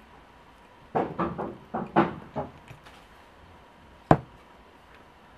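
Handling knocks on a table as a glass jar is packed with apricot halves: a quick run of clunks and knocks about a second in, then a single sharp knock a little after four seconds as a cup or jar is set down.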